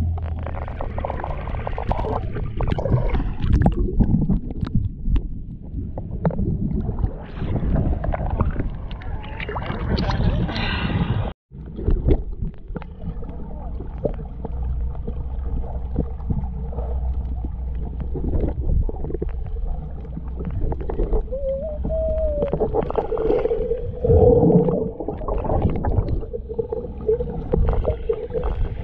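Muffled splashing and gurgling of water heard through a camera in or at the water during snorkeling, uneven and loud. After a sudden cut about a third of the way in, a steady hum runs under the water noise.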